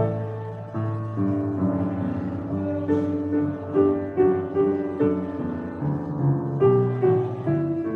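Piano music: a slow melody over held chords, with notes changing every half second or so.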